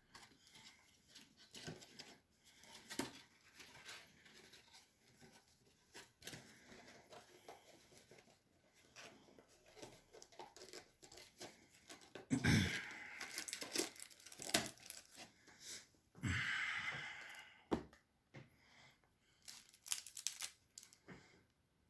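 A trading card pack wrapper being torn open and crinkled in the hands. Faint crackles and clicks run throughout, with two louder rips: one about halfway through and one a few seconds later.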